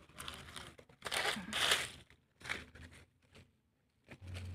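Dry fallen leaves crunching and rustling as they are disturbed in leaf litter, in irregular bursts, loudest about a second in.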